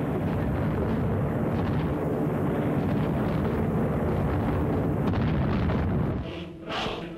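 Battle sound effects of an air raid: a continuous low rumble of explosions. About six seconds in it drops away and music begins.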